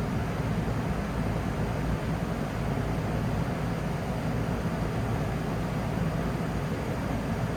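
Rheem Classic central air conditioner outdoor unit running: a steady rush from the condenser fan over a low hum from the Copeland scroll compressor.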